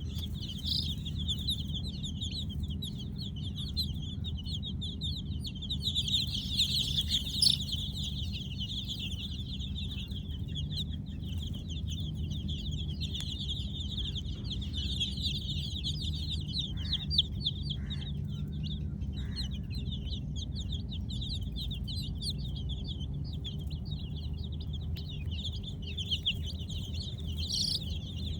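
A brood of baby chicks peeping continuously, many high-pitched chirps overlapping without a break, a little louder about a quarter of the way in. A steady low hum runs underneath.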